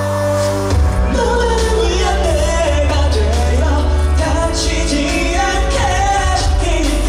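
A male pop singer singing live into a microphone over pop backing music. A held chord gives way to a strong bass beat less than a second in.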